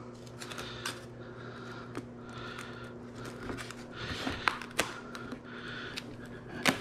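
Irregular small clicks and taps of plastic dishwasher-door parts being handled and pressed back into place, over a steady low hum.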